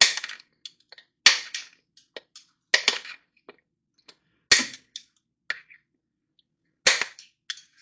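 Cutters clipping off the protruding ends of the metal plastic-welder staples: five sharp snaps spaced a second and a half to two seconds apart, with small faint ticks between.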